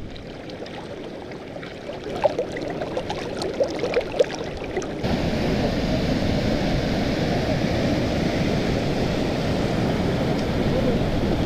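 Mountain stream running: a steady rush of water, with scattered short sounds over the first few seconds, turning suddenly louder and fuller about five seconds in.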